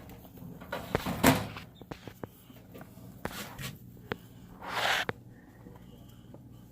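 Scattered light knocks and clicks of things being handled, with a heavier knock about a second in and a short rustling rush about five seconds in.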